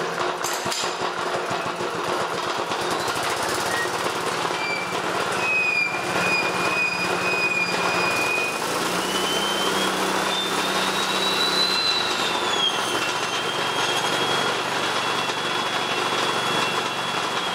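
High-voltage arc crackling and buzzing between a probe and a tin can, fed by an engine-driven F&P Smart Drive washing-machine motor used as a generator, over the engine's steady running. A high whine rises about halfway through and then settles a little lower.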